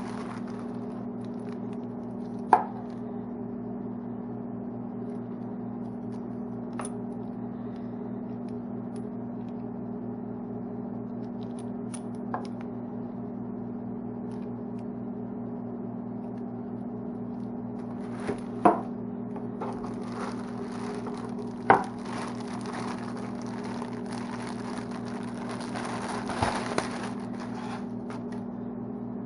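A steady low hum with three loud sharp knocks, a few fainter clicks, and a brief clatter near the end.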